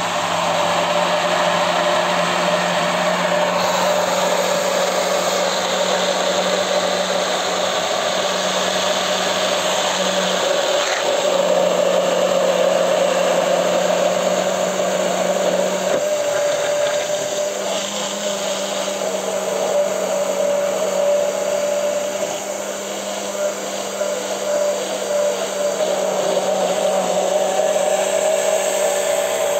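Hand-held immersion blender running without a break in a tall plastic beaker, emulsifying egg, oil, anchovy, lemon and mustard into a creamy Caesar dressing. A steady motor whine with the blade churning the liquid, its tone shifting a little now and then as the blender is worked in the beaker.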